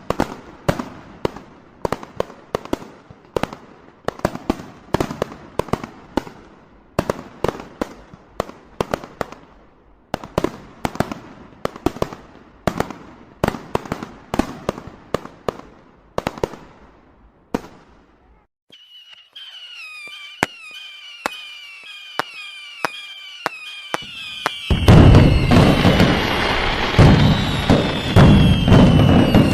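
Fireworks. For the first eighteen seconds or so a string of sharp firecracker bangs goes off, several a second. Then comes a quieter stretch of repeated falling whistles with a few cracks. Near the end a loud, dense barrage starts, with the whistles still sounding over it.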